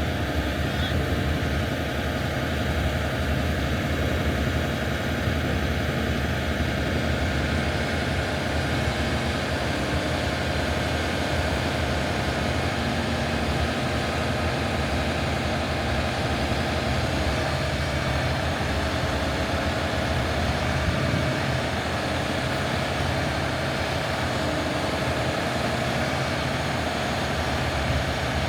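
Heavy diesel harvest machinery running steadily, a deep engine rumble with a constant mechanical hum over it.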